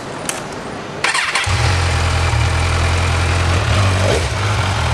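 Kawasaki Z1000's inline-four engine starting: about a second in the starter turns it over briefly, it catches, and it settles into a steady idle.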